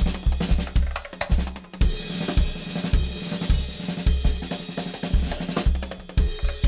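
Drum kit played fast and hard: rapid bass-drum kicks under snare and cymbal hits.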